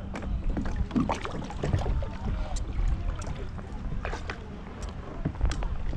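Water sloshing and splashing around a fishing kayak as it is guided onto a submerged kayak dolly, with scattered short knocks and rattles from the hull, dolly and gear.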